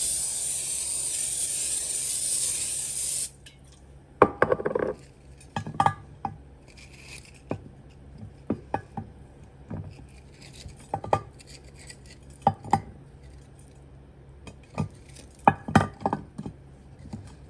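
Aerosol cooking spray hissing steadily onto a baking pan for about three seconds, then stopping. After it come scattered knocks and clinks as hash brown patties are laid into the pan and pressed in to fit.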